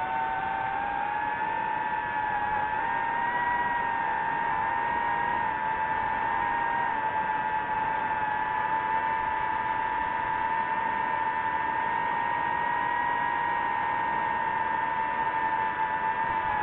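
Small quadcopter drone's propellers and motors whining steadily. The pitch dips and rises slightly now and then as the motors change speed.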